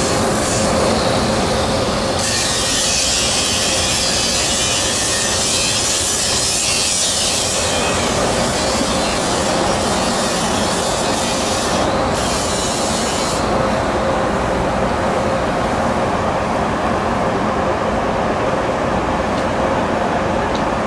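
Scheuchzer Grizzly 104 L rail-grinding train grinding the rails: steady, loud machine noise with a constant hum. A harsher hissing grind swells about two seconds in and lasts until about seven seconds, then returns briefly about twelve seconds in.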